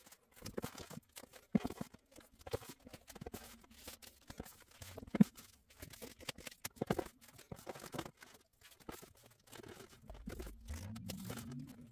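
Pads of scrapbook paper being slid, flipped and stood upright against each other on a shelf: papery rustling and shuffling with scattered light knocks, the loudest about five seconds in.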